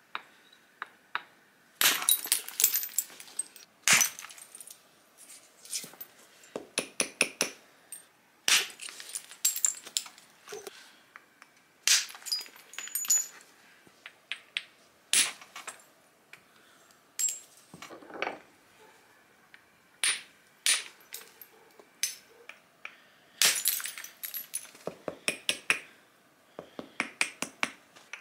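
Antler billet striking the edge of a stone biface disc in flintknapping, knocking off thinning flakes: sharp, irregular strikes, some single and loud, others in quick runs of small ticks, with pauses between.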